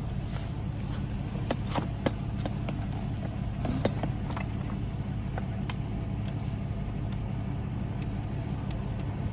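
A vehicle engine running steadily at idle, with scattered light clicks and taps of something being handled.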